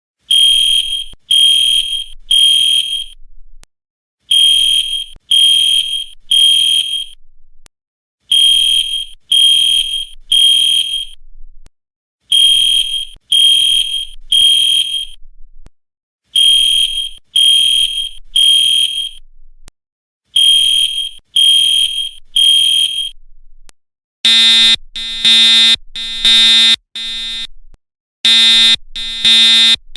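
School fire alarm sounding after being pulled, which makes it a false alarm: a piercing high tone in sets of three pulses, repeating about every four seconds. About 24 seconds in, it switches to a lower, buzzier horn sounding in quicker runs of short blasts.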